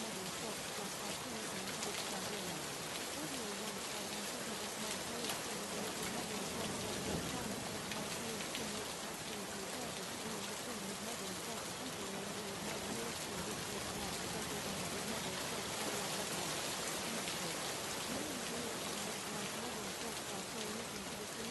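Steady rain with an even hiss and patter, used as a masking bed, with a faint, indistinct voice wavering beneath it.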